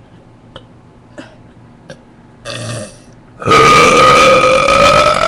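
A person's long, loud burp lasting about two seconds, rising slightly in pitch, forced up from swallowed air without a drink. A short breathy sound and a few faint clicks come before it.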